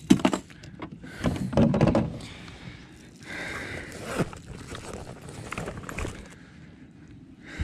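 Hollow knocks and thumps on a plastic fishing kayak as a fish and gear are handled aboard: a few sharp knocks at the start, a louder cluster of thumps about a second and a half in, then scattered lighter knocks.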